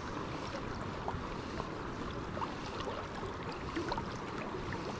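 Steady rush of a fast river's current, with small irregular splashes and laps of water.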